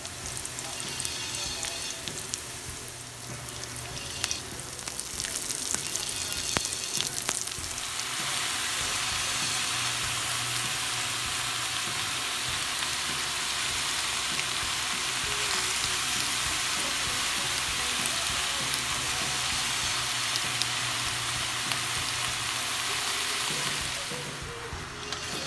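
Food frying in hot oil in a metal wok, stirred with a wooden spoon, with scattered scrapes and clicks. About eight seconds in, the sizzle grows louder and denser as cabbage goes into the pan, then dies down a little near the end.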